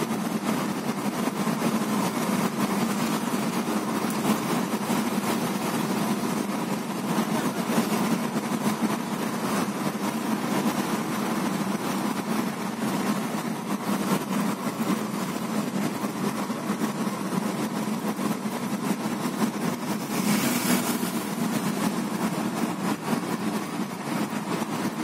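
Inside a moving car's cabin: steady engine and tyre noise while driving on a paved road, with a brief hiss about twenty seconds in.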